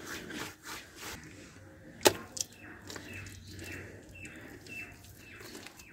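A hand rubbing and scraping damp mud and loose soil in the fire opening of a clay stove, with one sharp click about two seconds in. From about halfway through, a bird chirps in short repeated calls, roughly twice a second.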